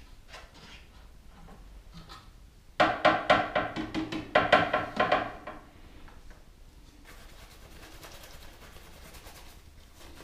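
Rapid hollow knocking and rattling, a circuit board knocked against a plastic jar, in two bursts of about a second and a half each, followed by a soft steady hiss.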